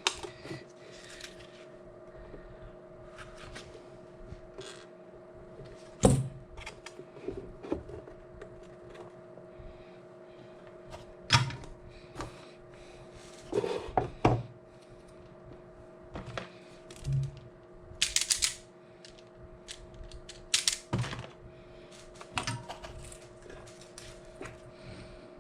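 Scattered clicks, taps and knocks of small tools, wires and parts being handled on a workbench during soldering work, over a steady hum. A brief hiss comes about two-thirds of the way through.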